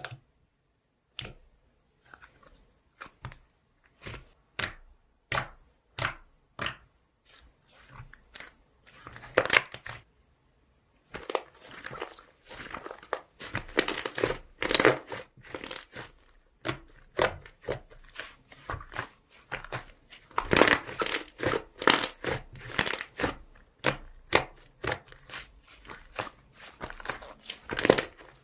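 Slime being worked by hand, giving sharp pops and clicks: spaced out for about the first ten seconds, then a dense run of crackling pops.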